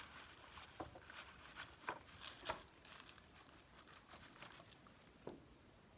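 Faint handling sounds from swatching powder eyeshadow on an arm: scattered soft taps, clicks and rubs of fingers on the palette and skin. The most distinct clicks come about two seconds in and again near the end.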